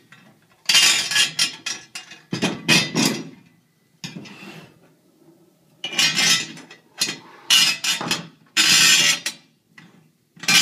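Metal mounting-bracket plates and carriage bolts clattering and clinking against each other and the wooden table as the bolts are pushed through the bracket's square holes. The clatter comes in about half a dozen short bursts, roughly one every second or so, with quieter handling between.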